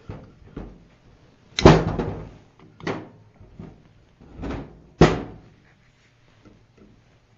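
Several sharp knocks and clunks of a small lawnmower engine's cast metal block being turned over and set down on a wooden block on a workbench, the loudest about a second and a half in and again about five seconds in.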